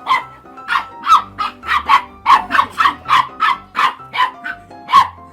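A dog barking rapidly and repeatedly, about three short sharp barks a second, with music playing underneath.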